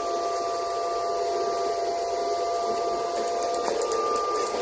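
Powerhouse MIG welding machine switched on: a steady whir with a constant whine, likely the cooling fan and wire-feed drive running as wire is fed to the torch. About three and a half seconds in, one part of the whine stops with a click while the rest keeps running.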